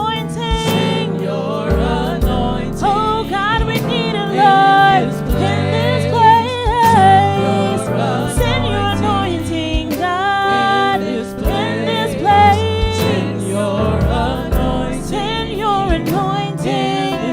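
Gospel worship music: singing over instrumental backing with sustained bass notes and a steady beat.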